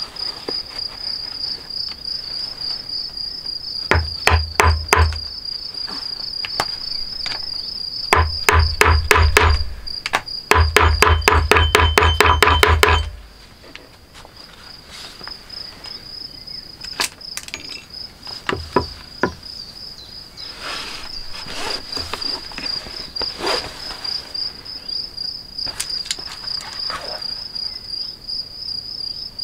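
Crickets chirping in a steady, fast-pulsing high trill. Early on, three bursts of rapid knocking are the loudest sound, each a quick series of sharp hits; the last and longest stops suddenly about halfway through.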